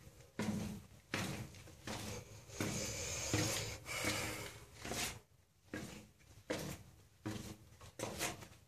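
Footsteps walking along the stone floor of a narrow tunnel, about one step every three-quarters of a second, with a brief pause about five seconds in.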